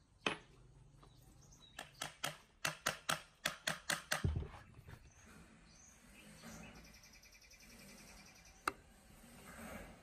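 Metal tool striking the rusty ceiling-fan shaft: a quick run of about a dozen sharp metallic taps, about four a second, ending in a dull thump, followed by faint scraping and one more sharp click near the end.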